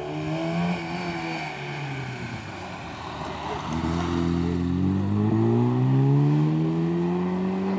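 Rally car engine under hard acceleration: the revs climb, drop back briefly after about two seconds, then rise in one long steady climb that breaks off near the end, as at a gear change.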